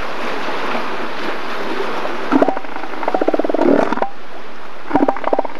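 Steady rush of surf, and from a little past two seconds in, elephant seals calling in several bouts of rapid, throaty pulses.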